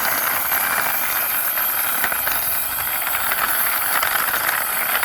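A toy car's small wheels rolling across a surface as it is pushed by hand: a steady rolling hiss with faint light ticking.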